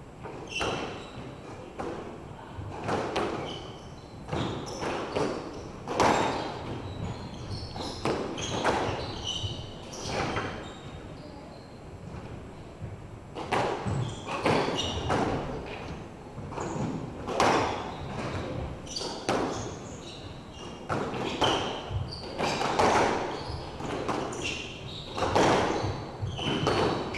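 Squash ball striking rackets and court walls in irregular sharp knocks, mixed with short squeaks of court shoes on the wooden floor.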